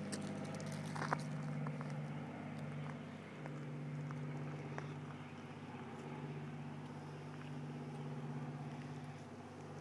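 A steady low motor hum that swells and dips slightly, with a few faint clicks and knocks.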